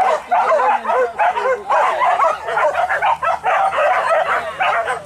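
Several hunting dogs barking and yelping excitedly, their barks overlapping in a rapid chorus without a break.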